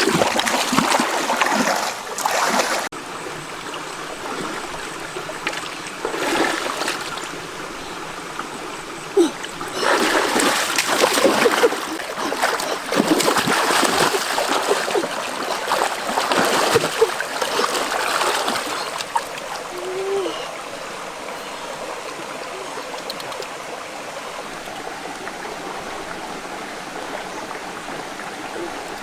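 Water splashing in irregular bursts over the steady rush of a flowing stream. The splashing stops about twenty seconds in, leaving only the even sound of the running water.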